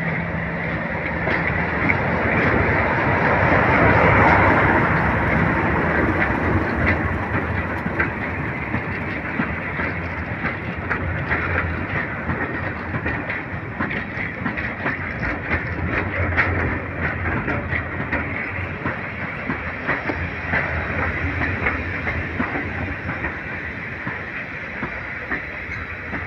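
Class 37 diesel-electric locomotive, with its English Electric V12 engine running, passes close by on arrival. Its coaches then roll past, wheels clicking over the rail joints. The sound is loudest about four seconds in as the locomotive goes by, then slowly fades near the end.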